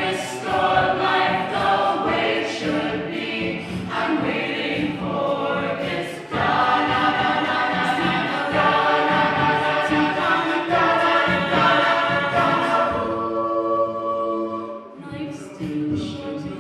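An a cappella vocal group sings a pop arrangement in full voice, with sharp rhythmic accents. About thirteen seconds in, it thins to a softer held chord, then the voices build again near the end.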